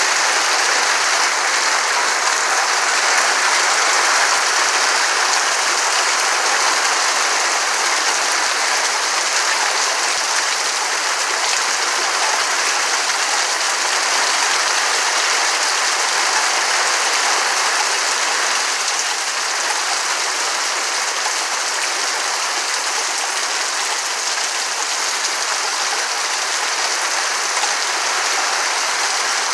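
Heavy rain pouring steadily onto evergreen trees and the ground, a dense, even hiss that holds at the same level throughout.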